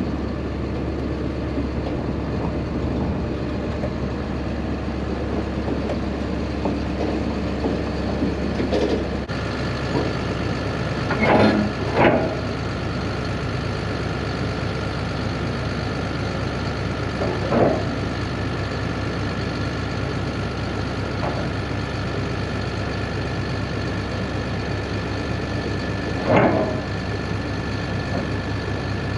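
Caterpillar D6 bulldozer's diesel engine running steadily while the dozer is driven onto a lowboy trailer, with four short, sharp metallic noises from its steel tracks and blade on the trailer deck, two of them close together.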